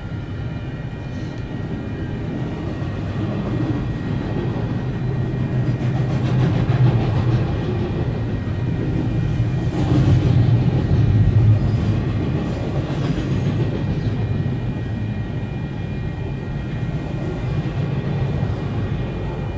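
Double-stack container freight train rolling past: a steady low rumble of wheels on rail with a faint steady high whine. It swells louder about six seconds in and again around ten to twelve seconds.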